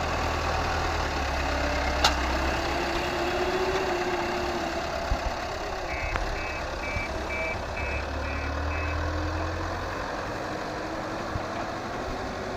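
Diesel engines of a loaded tipper truck and the heavy machinery beside it running, the engine note slowly rising and falling as the truck moves off. Midway a reversing alarm beeps about seven times.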